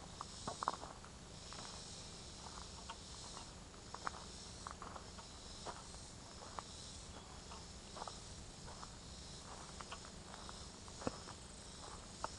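A chorus of summer insects buzzing in the woods, swelling and fading about once a second, with scattered crunches of footsteps on a dirt forest trail.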